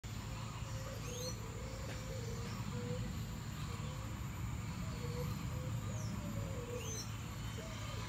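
Birds calling: a few high, quick whistled glides, and a low cooing note repeated every second or so, over a steady low hum.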